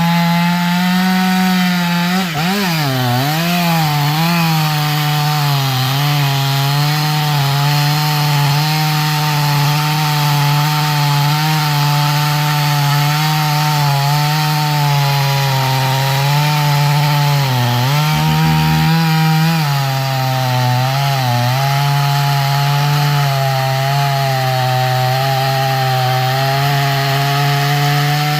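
Two-stroke chainsaw running at high revs, cutting into the trunk of a large red oak. Its pitch drops and wavers briefly a few times as the chain bites and loads up in the cut.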